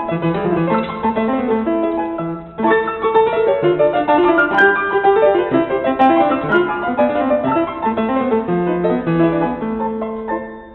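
Background music led by piano, a flowing melody of quick notes that dips briefly about two and a half seconds in.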